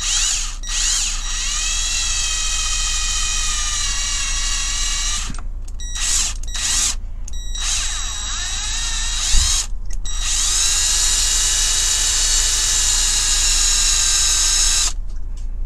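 Cordless drill boring out the rivets that hold a diecast toy car's base together, its motor whining at high pitch. The drilling stops and restarts several times in the middle and stops shortly before the end.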